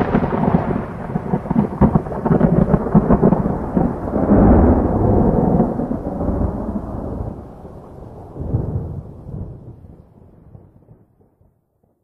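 Thunder sound effect: a long rolling rumble with crackling peaks. It swells again about four seconds in, then dies away to nothing near the end.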